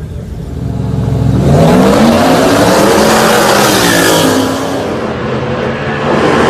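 V8 engines of street-racing cars accelerating hard at full throttle: the engine note climbs sharply about a second and a half in, rises and falls around four seconds in, and climbs again near the end.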